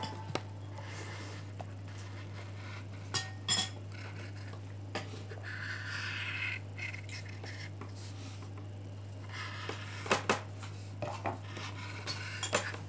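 A pencil scratching on paper on a table while drawing, with a few sharp taps and knocks. A steady low hum runs underneath.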